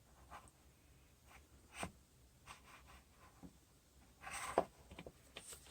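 Small plastic and metal parts of a truck fuel-door hinge being handled: scattered light clicks and scraping, a sharper click about two seconds in and a brief burst of scraping past the four-second mark.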